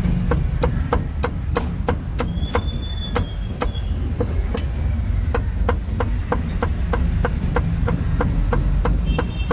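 Cleaver chopping roast meat on a wooden chopping block: quick, even strokes, about three a second.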